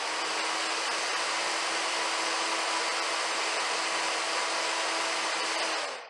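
Computer fan running steadily: an even rush of air with a constant low hum beneath it.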